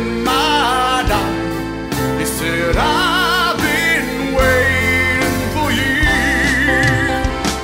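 A ballad: a singer holds long notes with vibrato over a steady instrumental backing.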